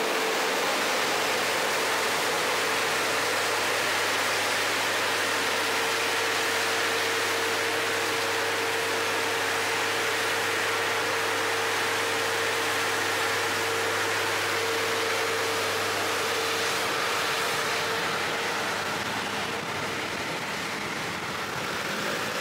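Vehicle driving along a road: steady road and wind noise with a low engine hum, which fades out about three quarters of the way through.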